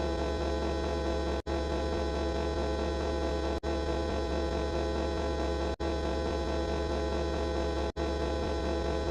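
A steady, dense buzzing hum sound effect with many overtones over a strong low drone, played over and over and cut by a brief gap roughly every two seconds.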